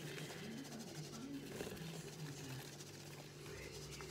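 Faint rustle of icing sugar poured from a bag into a plastic sieve and shaken through into a mixing bowl.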